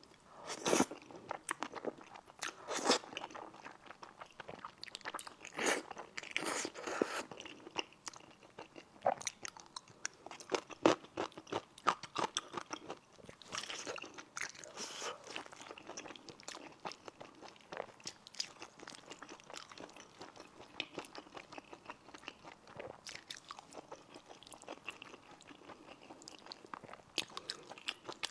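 Close-miked eating of thick, saucy stir-fried rice noodles: slurping, biting and chewing, with irregular smacks and clicks from the mouth.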